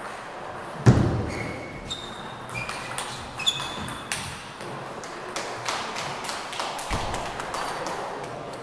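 A table tennis rally: the ball clicks off the paddles and pings on the table in a quick, irregular series of sharp ticks for several seconds. There is a heavy thump about a second in.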